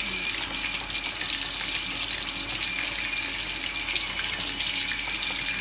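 Tofu frying in hot oil: a steady sizzle, thick with small crackles and pops.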